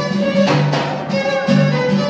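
Live Moroccan Amazigh chaabi music: a violin plays a held, wavering melody over a steady frame-drum beat that lands roughly once a second.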